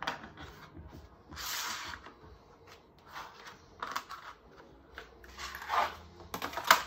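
Handling of a rigid plastic cutting template and vinyl plank pieces on a floor: a short scrape of plastic sliding over the floor about a second and a half in, a few light clicks, and a quick run of sharper clacks near the end as pieces are set down.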